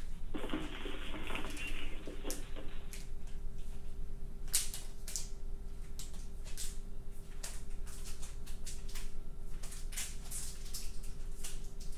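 Scattered, irregular clicks and taps like computer keyboard typing, picked up by an open microphone on a video call. A steady hum sets in about two and a half seconds in.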